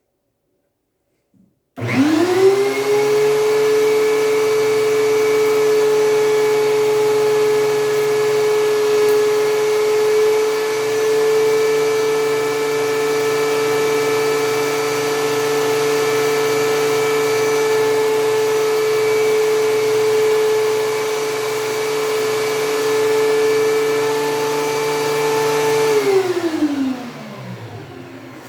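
DeWalt DW735 benchtop thickness planer switched on about two seconds in, spinning up quickly to a loud, steady high-pitched whine. It is switched off a couple of seconds before the end and winds down with falling pitch.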